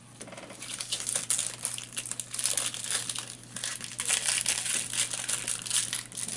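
Thin clear plastic wrapping crinkling and crackling as it is scrunched up in the hands. The crackles grow louder about a second in.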